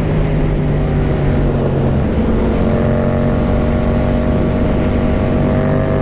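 Yamaha MT-07 motorcycle's 689cc parallel-twin engine running at highway speed under heavy wind rush. Its note shifts about two seconds in, then climbs slowly.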